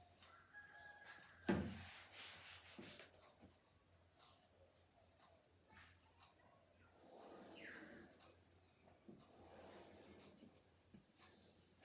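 Faint, steady high-pitched chirring of crickets, with a single sharp knock about a second and a half in and a few fainter knocks just after it.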